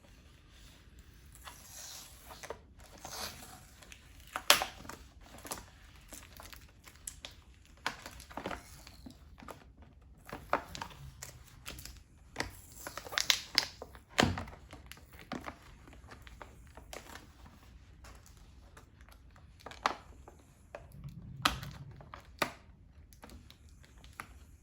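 Packaging of a Play-Doh Slime Super Cloud being opened by hand: irregular crinkling and tearing, with scattered sharper clicks and snaps.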